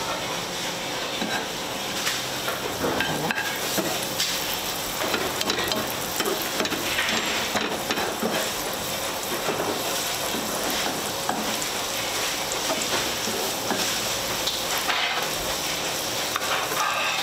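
Chopped garlic sizzling in olive oil in a non-stick frying pan, stirred with a slotted spatula that scrapes against the pan now and then.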